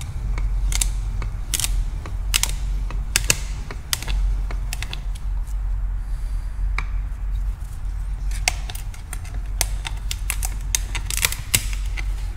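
Oil filter cutter being turned around the steel can of a used spin-on oil filter, cutting it open with sharp clicks at irregular intervals. A steady low hum runs underneath.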